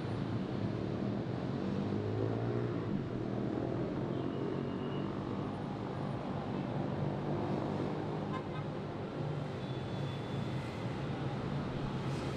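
Dense city road traffic: a steady hum of vehicle engines and tyres, with one engine's pitch rising and falling as it passes close about two to four seconds in.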